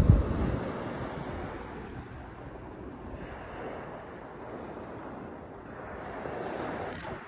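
Small sea waves breaking and washing up a shingle beach, swelling twice. Wind buffets the microphone, hardest in a gust right at the start.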